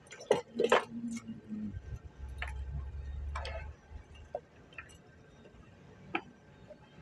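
Scattered clicks and knocks of handling and opening a 12-volt power supply unit, with a low steady hum for about two seconds near the start.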